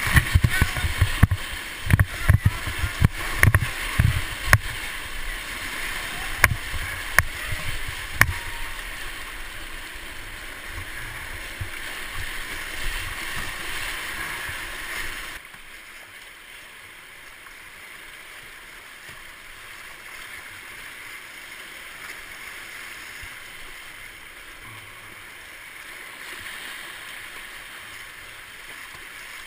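Whitewater rapids rushing around a kayak, with splashes slapping against the camera in a quick run of sharp thumps over the first eight seconds or so. About halfway through, the sound drops abruptly to a quieter, steady rush of fast-flowing river water.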